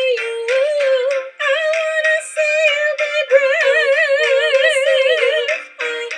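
A woman singing a pop song over backing music, with a long held note with wide vibrato in the second half.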